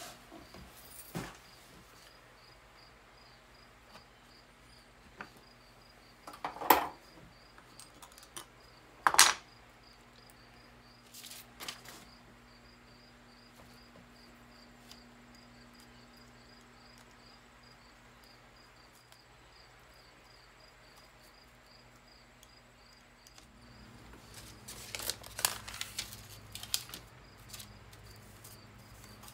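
Glass being handled on a workbench while a stained-glass panel is worked on: two sharp clinks, a few softer clicks, and near the end a couple of seconds of rustling and scraping under the hands. A steady high chirping repeats a few times a second in the background, over a low hum.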